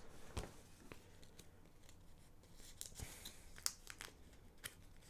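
Faint handling sounds of small LEGO parts and a sticker sheet: a few scattered light clicks with some soft rustling.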